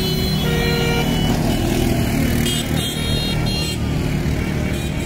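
Several ATVs driving slowly past in a line, their engines making a steady low drone. A few short, higher steady tones sound over it.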